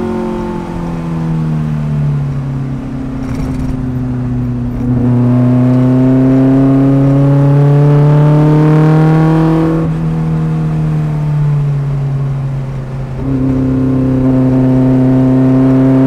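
Fiat Abarth 1000's rear-mounted four-cylinder engine heard from inside the car on track. The revs sag at first, then climb steadily under throttle for several seconds, fall away abruptly about ten seconds in, and climb again in the last few seconds.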